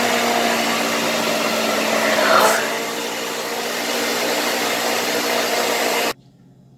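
Countertop blender motor running steadily as it blends a liquid lemon mousse mixture, with a brief surge about two and a half seconds in; it cuts off suddenly near the end.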